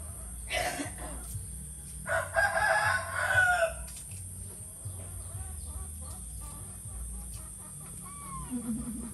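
Animal calls: a short call about half a second in, then one long, loud call with a clear pitch lasting nearly two seconds.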